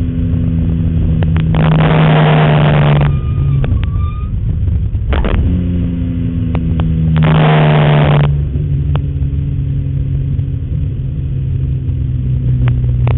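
BMW M3 race car's engine heard from inside the cabin, running at fairly steady revs, with its pitch dropping about three seconds in and again near eight seconds. Two loud rushing surges of noise, each about a second long, come roughly five seconds apart, with scattered clicks and rattles.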